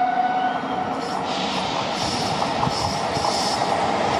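Train horn sounding one held note that ends about half a second in, then the rush and rumble of an approaching electric passenger train growing slowly louder, with a hiss on top from about a second in.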